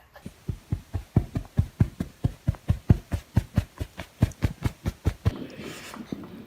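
Rapid, even thumping or knocking, about four to five knocks a second, stopping about five seconds in.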